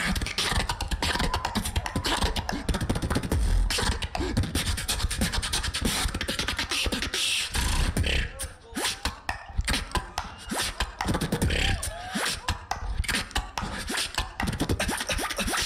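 Live beatboxing in a battle round: a fast, dense run of mouth clicks and snare-like hits over deep bass kicks, keeping a flowing beat.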